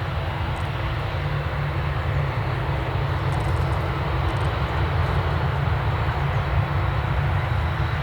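Jet airliner engine noise at an airport: a steady, loud rumble with a hiss above it that does not change.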